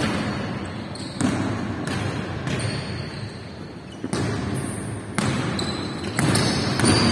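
Basketball bouncing on a hardwood gym floor during play. Each thud rings briefly in the hall, roughly once a second at an uneven pace. Short high squeaks of sneakers on the wooden floor come in between.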